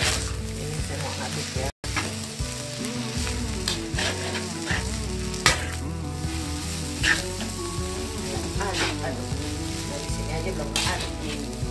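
Fried rice sizzling in a metal wok while a metal spatula stirs and presses the clumping rice, with repeated scraping strokes against the pan and one sharp knock about five and a half seconds in. The sound cuts out for a moment just before two seconds in.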